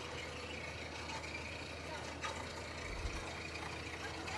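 Truck-mounted drilling rig's engine running with a steady low drone and a constant noisy hiss over it.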